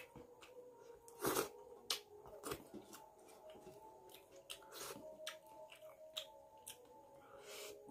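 Close-miked eating sounds: lip smacks and chewing, with fingers scraping the curry from a stainless steel plate, heard as a run of short clicks and smacks, the loudest about a second in.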